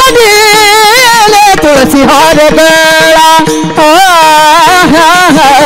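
Devotional kirtan singing: a voice holds and ornaments long, wavering melismatic notes over a steady held drone, with drum strokes keeping the rhythm.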